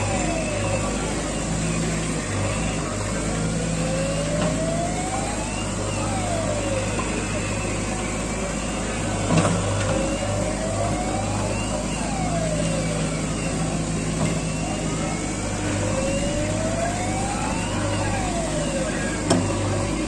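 JCB 3DX backhoe loader's diesel engine running under load as the backhoe arm digs, with a whine that climbs slowly and then drops quickly, repeating about every six seconds. Two short knocks, one about halfway and one near the end.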